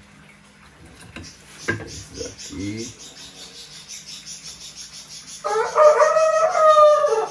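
A rooster crows once, a single pitched call of nearly two seconds starting about five and a half seconds in, the loudest sound here. A few short low sounds come about two seconds in.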